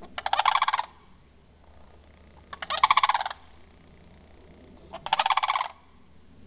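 Sandhill cranes calling: three rattling, rolling bugle calls, each under a second long, about two and a half seconds apart.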